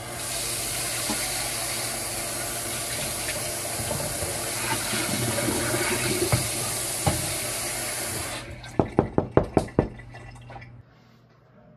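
Water running from a tap, cut off suddenly after about eight seconds, then a quick run of about seven sharp knocks.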